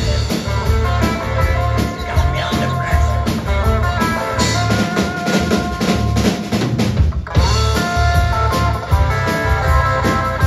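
Live band playing rock: electric guitar, bass guitar and drum kit. The band stops for a moment about seven seconds in, then comes back in with held guitar notes.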